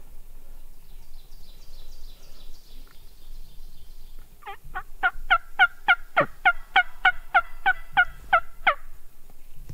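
A loud series of about fourteen turkey yelps, evenly spaced at about three a second, each note dropping in pitch, starting about halfway through and stopping shortly before the end.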